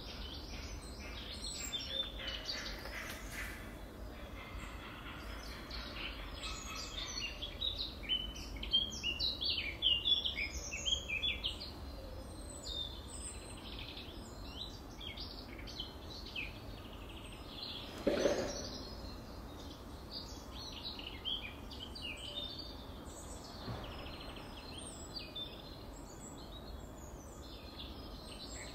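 Small birds chirping and twittering over steady outdoor background noise, with one sharp knock about two-thirds of the way through.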